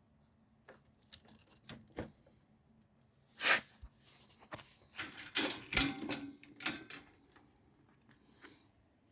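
A ferret coughing: one sharp hacking cough about three and a half seconds in, then a run of quicker hacks about a second and a half later, with fainter short scuffling noises before them.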